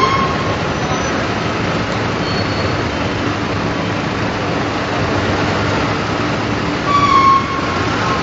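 Steady industrial machinery noise, with a short high metallic squeal at the start and a louder one about seven seconds in.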